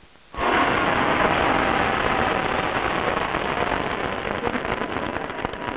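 Crowd applauding, a dense steady clatter of many hands that starts abruptly about a third of a second in.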